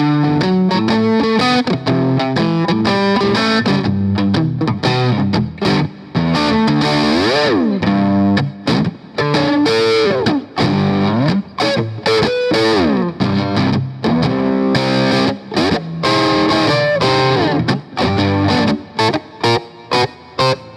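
Electric guitar played through a Boss BD-2 Blues Driver overdrive pedal: a driven lead with string bends about seven and a half and eleven seconds in, then short, choppy stabs near the end.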